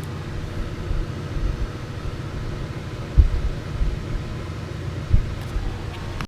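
Low steady machine hum with two dull knocks, about three and five seconds in, as metal chips are cleared from a lathe.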